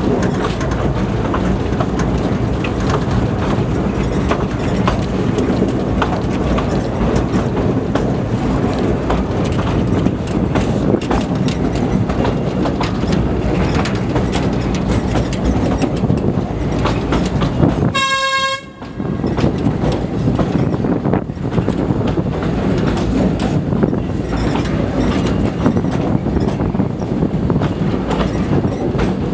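Narrow-gauge passenger train carriage running along the track: a steady rumble with frequent wheel clicks. About eighteen seconds in, the running noise briefly drops out under a short single-note toot.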